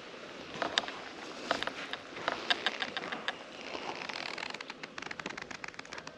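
Stainless steel thermos flask and its cup-lid being handled: scattered light metallic clicks and taps, then a quicker run of small clicks near the end.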